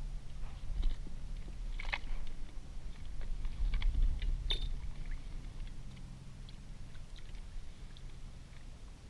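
Small clicks and rustles of hands handling fishing tackle (hook, line and float) close to the microphone, with two sharper clicks about two seconds and four and a half seconds in, over a low steady rumble.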